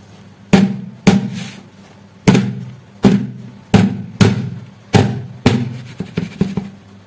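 Aluminium tube cake pan full of batter banged down repeatedly onto a metal baking tray to burst the air bubbles in the batter. About eight sharp metallic knocks, each with a short ring, roughly one a second, then a few quicker, lighter knocks near the end.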